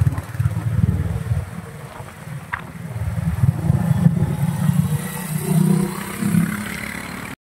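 Royal Enfield motorcycle engine running as the bike rides past at low speed, a low, pulsing exhaust note that swells a couple of times, then cuts off suddenly near the end.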